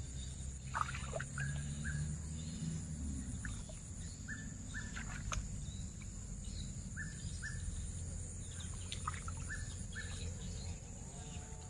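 Birds calling in short chirps, many in quick pairs, every second or two, over a steady high-pitched hum and a low rumble.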